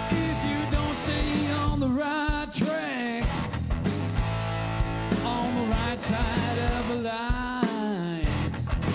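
Live blues-rock band playing: a male vocalist sings over electric guitar and a drum kit, holding notes with vibrato twice.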